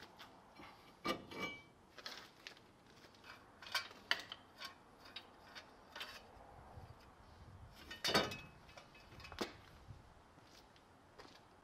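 Scattered metallic clinks, knocks and scrapes as a truck's front brake rotor is worked off the wheel hub by hand and the parts are handled. The loudest clank comes about eight seconds in.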